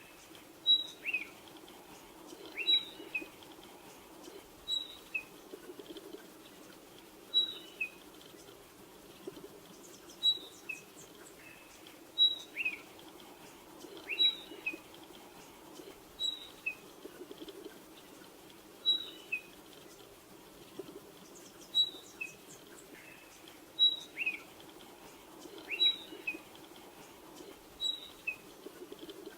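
Spotted pardalote calling: a high whistled phrase of two or three notes, the first highest and the rest lower, repeated about every two seconds.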